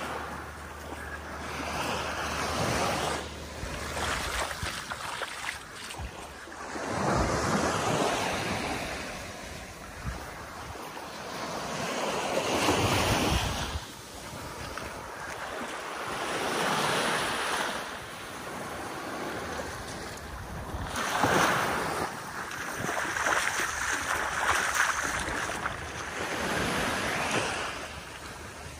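Small waves lapping and washing up a sandy beach, the wash swelling and fading every few seconds.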